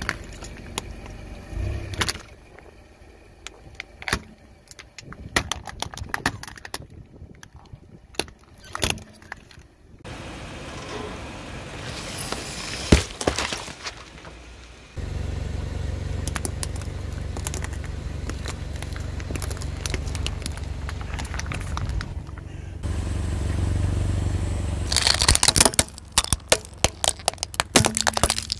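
A car tyre rolling slowly over brittle objects, crushing plastic and toys in separate runs. It starts with a long stretch of sharp cracks and crackling. The car engine then rumbles low and steady through the middle. A dense burst of loud cracks comes near the end as the tyre flattens plastic toys.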